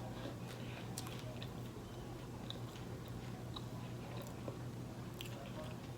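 Quiet chewing, with scattered soft mouth clicks over a steady low hum.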